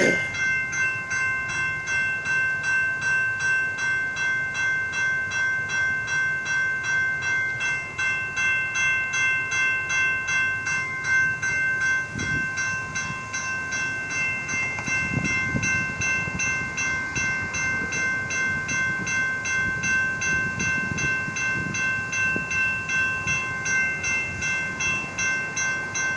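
Railroad crossing warning bell ringing steadily, about two strokes a second, while the crossing signals are active for an approaching light-rail train. A low rumble comes and goes about midway.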